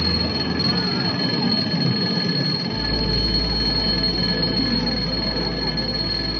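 Eerie electronic drone: a steady high whine over a low hum that drops in pitch about three seconds in, with swooping electronic tones throughout.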